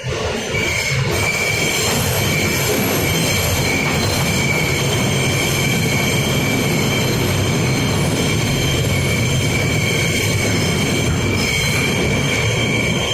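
R160B subway car running at speed, with a steady high-pitched wheel squeal over loud rumbling running noise; it comes in suddenly at the start.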